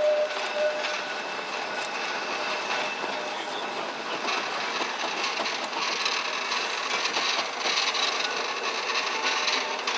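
Blackpool heritage tram heard from on board, running along street track: a steady running noise with rattles and clicks, which come more often from about four seconds in.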